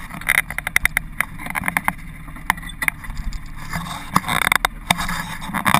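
Side-by-side UTV engine idling with a steady low rumble, under a run of sharp clicks and rattles from a seat-belt buckle being handled, thickest in the first second and again about four seconds in.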